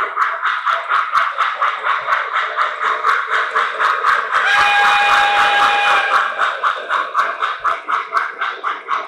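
Model steam locomotive's electronic sound system chuffing steadily, about five chuffs a second. A steam whistle sounds once, about halfway through, for about a second and a half.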